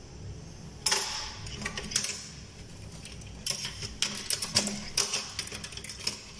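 Metal surgical instruments clinking against each other and the instrument tray as they are handled: one sharp clink about a second in, then a run of quick clicks and rattles in the second half.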